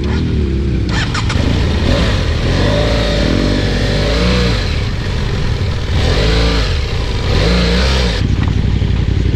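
BMW F800 parallel-twin motorcycle engine under throttle at low speed off-road, the revs rising and falling several times.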